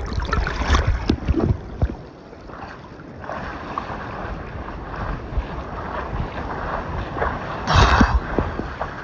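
Water splashing and sloshing as a swimmer strokes through a sea pool, picked up by a phone in a waterproof case: choppy for the first couple of seconds, then a steadier wash, with one louder splash about eight seconds in.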